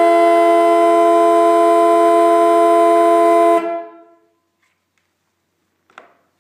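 Sparks-Withington (Sparton) 6-volt twin trumpet electric horns sounding together in one loud, steady chord, cut off sharply about three and a half seconds in and ringing away briefly. A faint click near the end.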